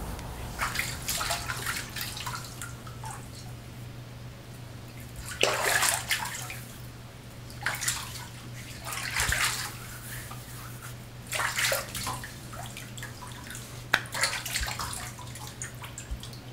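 Bathwater sloshing and splashing in a bathtub as a person sitting in it moves, in short irregular bursts every second or two, over a steady low hum.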